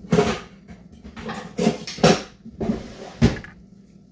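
Kitchen utensils and hard objects being handled, giving about six sharp, irregularly spaced knocks and clatters.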